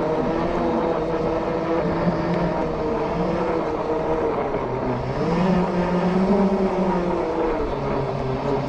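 Off-road Segway x2 electric drive motors whining steadily as it rolls over grass. The pitch dips and climbs again about halfway through, and the sound briefly gets louder with the change in speed.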